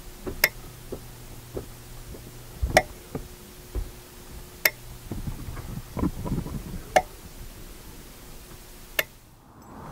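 Aube low-voltage transformer/relay for electric baseboard heaters clicking sharply five times, about two seconds apart, as its contacts are switched on and off from the thermostat. A faint steady low hum runs under the first half, with a few soft thumps in between.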